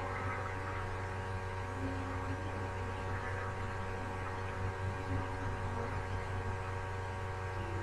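Steady electrical hum on the audio line: a constant low drone with several higher steady tones over it, unchanging throughout.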